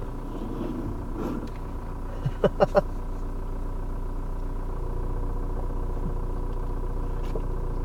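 Ford Mondeo running, heard inside the cabin as a steady low engine and road hum. About two and a half seconds in come four short, sharp pitched sounds in quick succession.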